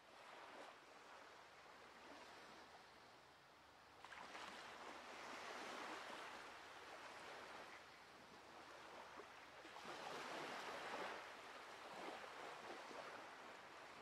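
Faint sea surf: small waves washing in, swelling about four seconds in and again around ten seconds.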